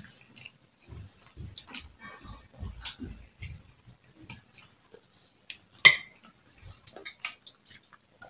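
A person eating with a spoon: soft chewing and scattered light clicks of the spoon against a plate, with one sharp clink about six seconds in.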